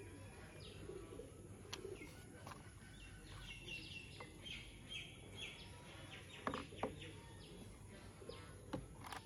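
Faint handling of plastic toy car parts and wheels, with a few sharp plastic clicks late on and a run of faint high chirps in the middle.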